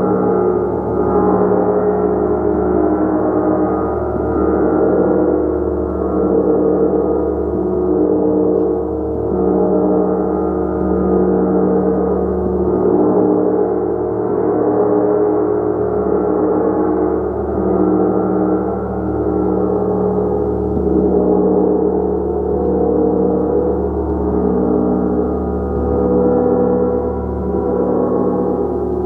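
Large hammered gong played steadily: a thick, sustained ringing of many overlapping tones that swells and eases gently about every two seconds.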